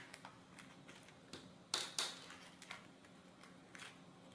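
Small metal nuts tipped out of a plastic parts bag, clicking onto a tabletop with faint crinkling of the bag. The clicks are light and few, the two loudest close together about two seconds in.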